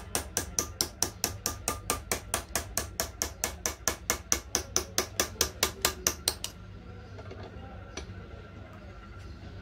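Small hammer tapping a steel engraving chisel along a line cut into a brass plate, rapid even light taps about six a second. The tapping stops about two-thirds of the way through, leaving only a faint low hum.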